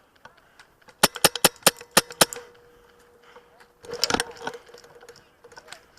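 Airsoft guns firing: a quick string of about seven sharp shots, then a short, dense burst about four seconds in.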